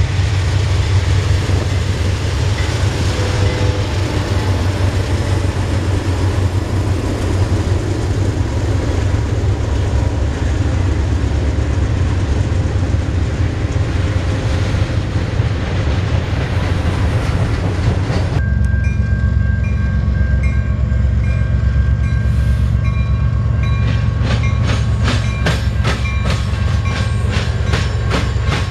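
A freight train running past at close range, its wheels and cars rumbling loudly and steadily on the rails. About two-thirds of the way through, the sound changes abruptly to a thinner rumble. Near the end, regular clickety-clack of wheels over rail joints sets in.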